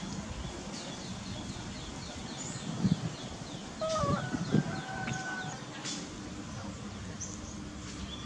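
Bird calls: a run of quick, high, falling chirps, then a long call held at one pitch for over a second, starting about four seconds in. Two sharp knocks sound around the three- and four-and-a-half-second marks.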